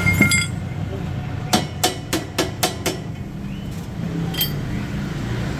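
Sharp metallic taps on the car's exhaust pipe during straight-pipe work: a quick run of about seven strikes about a second and a half in, then one more near the end, over a steady low hum.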